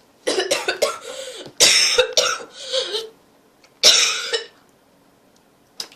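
A man coughing in a fit: a run of short coughs, then a louder bout about two seconds in and another about four seconds in. The phlegmy cough of someone sick with a chest cold.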